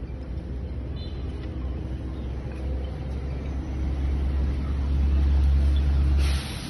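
A low rumble that builds over a few seconds and cuts off abruptly a little after six seconds in.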